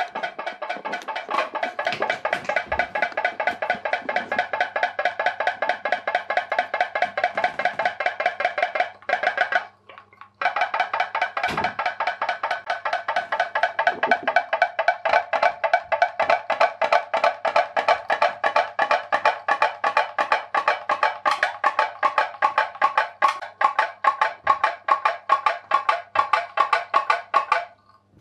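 Homemade pop-pop boat running: the jam-jar-lid diaphragm on its tea-light-heated steam boiler pops in and out in a rapid, even rhythm of several pops a second, each with a short ringing tone. The popping breaks off briefly about nine seconds in.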